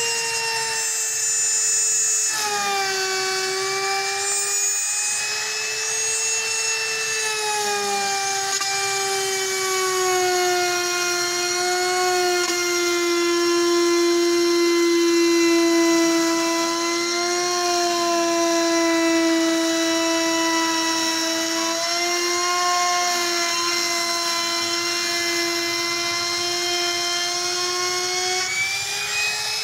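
Electric trim router running with a high steady whine while routing a groove along a laminate-faced door panel. Its pitch drops about two seconds in as the bit bites into the cut and stays lower under the cutting load, wavering slightly, then rises again at the very end as the load comes off.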